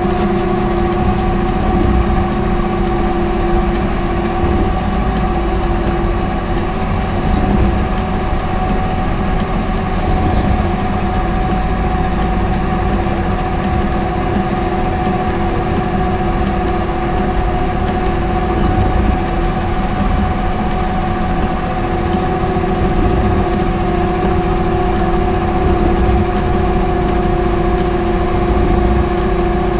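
Aircraft towing tractor running steadily while it tows an airliner, heard from the cab: an even engine rumble with a steady whine held over it.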